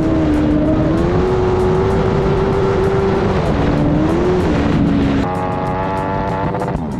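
Engine of a motorized shopping cart running at speed, its note mostly steady with a brief dip about three and a half seconds in. A little past five seconds it changes abruptly to a higher, steady engine note.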